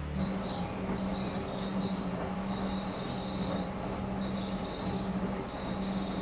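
Laundromat washing machines and dryers running: a steady low hum with a faint high tone that comes and goes above it.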